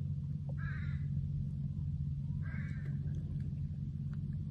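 A crow cawing twice, about a second and a half apart, over a steady low rumble.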